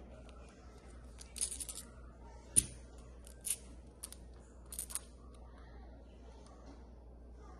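Small magnetic building cubes clicking and clacking together. There are a few light clicks, one louder knock about two and a half seconds in, and some more clicks up to about five seconds in.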